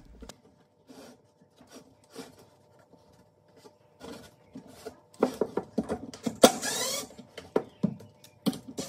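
Light taps and handling of screws against plywood, then about five seconds in a cordless Milwaukee impact driver runs in short bursts for about two seconds, driving a screw into a plywood panel, followed by a few knocks.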